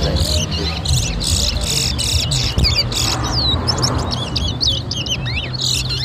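Towa-towa finches singing in a song-count race: quick runs of sharp chirps and whistled notes that sweep up and down, repeated one phrase after another, over a steady low hum.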